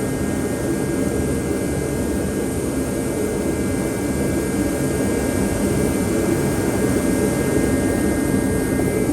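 A steady, unchanging mechanical drone, mostly low, with a faint high whine running through it.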